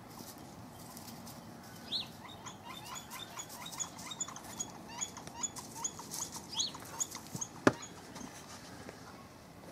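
Yellow-shafted flicker giving a run of short, evenly spaced call notes, about two or three a second, for some five seconds. A single sharp knock near the end is the loudest sound.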